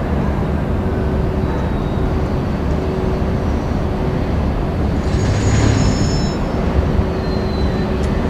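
Freight train rolling past with a steady low rumble, and a faint high squeal about five seconds in.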